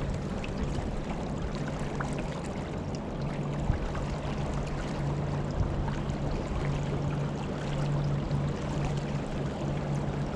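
Water rushing and splashing along a kayak on the river, over a steady low hum.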